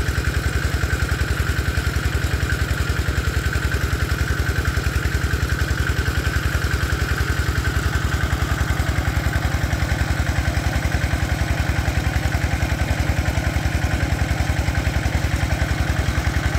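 Small engine running steadily with a rapid, even chugging beat, driving the water pump that is draining the pond.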